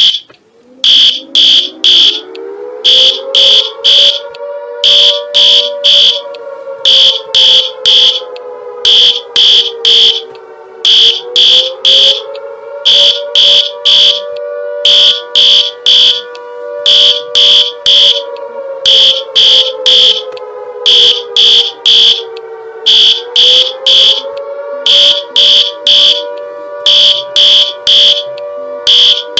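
Emergency alert alarm: a siren wail that climbs at the start and then slowly sweeps up and down, under loud, high-pitched beeps repeated in quick groups throughout.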